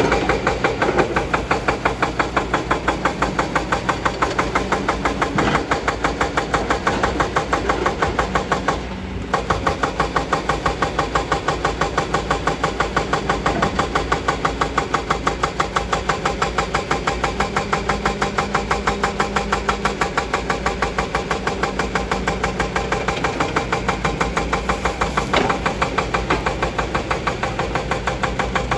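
Kobelco excavator's diesel engine running with an even, rhythmic pulsing of about three to four beats a second, dipping briefly about nine seconds in.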